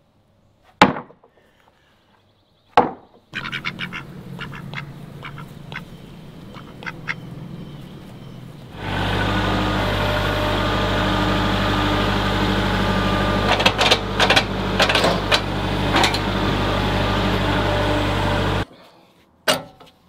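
Two sharp wooden knocks as heavy sawn white oak boards are set down on a lumber stack. Then a compact tractor's engine runs steadily close by while carrying a log on its forks, with a few metal clanks, and stops suddenly near the end.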